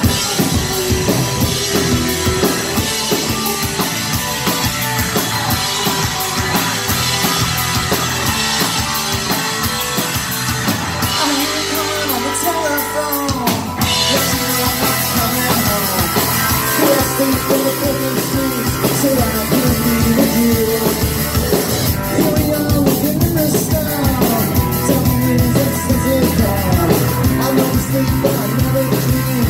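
Live rock band playing a song: electric guitars, electric bass and drum kit, with a man singing lead vocals into a microphone.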